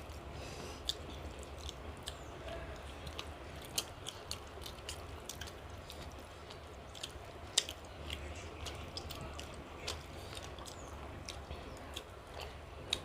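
Close-up chewing and eating of fish curry, with scattered short wet mouth clicks and lip smacks over a faint low hum.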